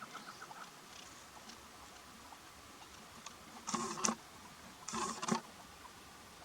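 Female chukar partridge calling: a quick run of evenly spaced clucking notes that stops about half a second in, then two short, harsh calls about a second apart.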